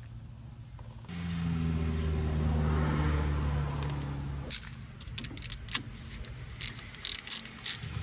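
A small motor runs steadily for about three and a half seconds, starting about a second in, then stops and gives way to a series of irregular sharp metallic clicks.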